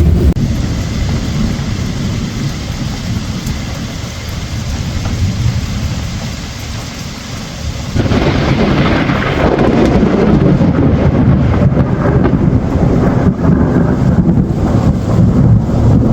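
Rain falling with deep rolling thunder that slowly dies away. About halfway through the sound jumps abruptly to louder, hissier rain over a low rumble.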